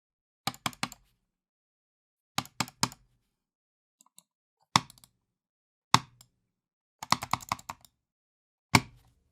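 Computer mouse buttons clicked hard and impatiently, in angry bursts. There are quick triples of clicks, then single heavy clicks, and a rapid flurry of about eight clicks near the end.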